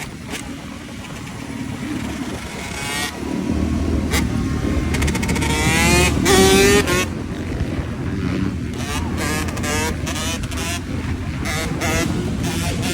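Motorcycle engine running and being revved, growing louder to a peak about six seconds in, then settling back to a steady run.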